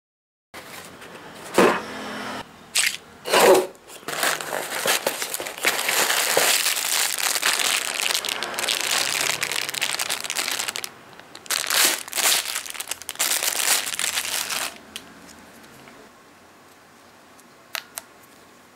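Clear plastic packaging bag crinkling and rustling as it is handled and opened, with several sharper, louder crackles. It stops about 15 seconds in, leaving a quiet stretch with a single short click near the end.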